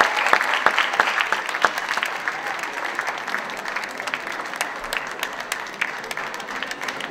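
An audience applauding with many hands clapping, loud at first and easing off a little.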